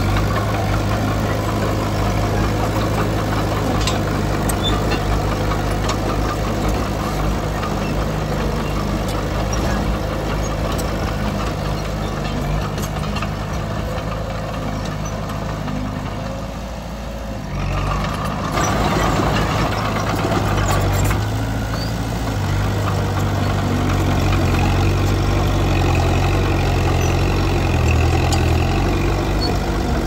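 Komatsu D20P bulldozer's diesel engine running, steady and low, easing off briefly a little past the middle and then coming back up louder.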